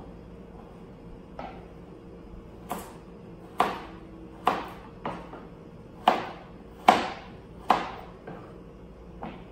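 Kitchen knife slicing carrots on a cutting board: about ten sharp knocks of the blade hitting the board, unevenly spaced, roughly one a second.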